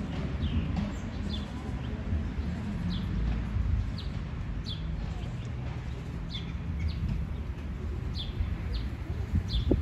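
Small birds chirping: short, high, downward-sliding chirps repeating every half second or so over a steady low background rumble, with a brief louder knock near the end.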